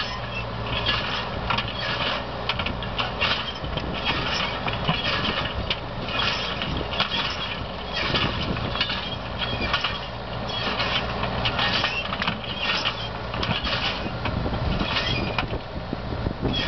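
Tractor engine running steadily while a tractor-drawn rotary rock picker works a stony field, its toothed reel raking stones into the hopper with continuous irregular rattling and clinking of stone on metal.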